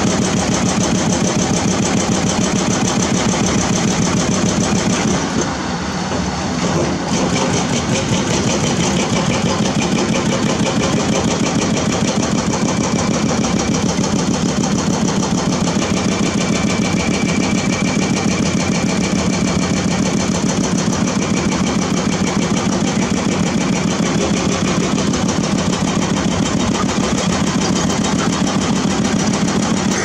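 Diesel engines of a CAT 320D crawler excavator and a bulldozer running steadily under work, a dense continuous engine sound that eases briefly about six seconds in.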